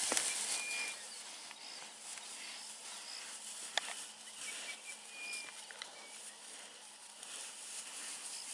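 Steady high chorus of insects, with a faint high chirp now and then and two sharp knocks, one at the very start and one about four seconds in.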